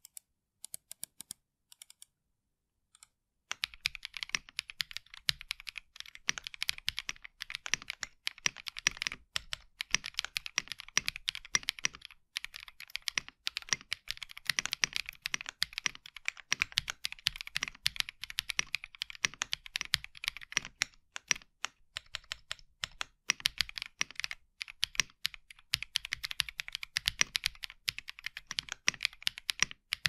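Typing on a Dymium 65 aluminium 65% mechanical keyboard with lubed Epomaker Wisteria linear switches and Aifei double-shot ABS keycaps. A few scattered clicks come first, then a steady, fast run of keystrokes begins about three and a half seconds in.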